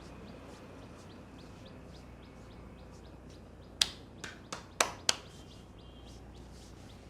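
Five sharp cracks in quick succession a little past the middle, made by a barber's hands during a head massage. Faint chirping ticks at an even pace run underneath.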